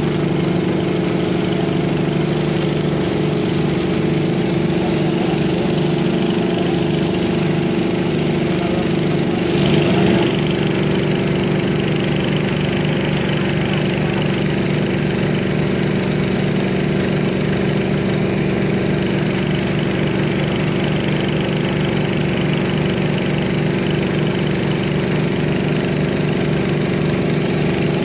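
Engine running steadily at a constant speed with a fast, even pulse, briefly louder and shifting in pitch about ten seconds in.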